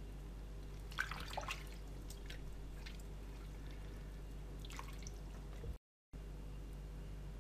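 Small splashes and drips of water as hands rub and rinse squid in a bowl of water: a cluster of splashes about a second in and a smaller one near five seconds, over a steady low electrical hum. The sound cuts out completely for a moment near the end.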